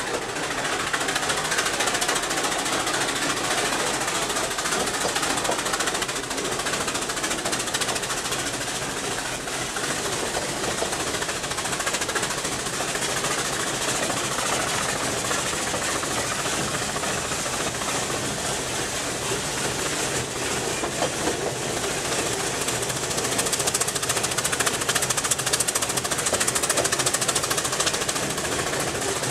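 Steam rack locomotive and its carriages of the Brienz Rothorn Bahn on the move: a fast, steady beating of exhaust and running gear with the rattle of the coaches, a little louder near the end.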